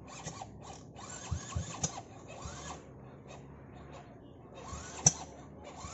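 Scattered mechanical clicks, scrapes and rustling as a Kawasaki dirt bike is shifted by hand against a tree in undergrowth, with a sharper knock about five seconds in.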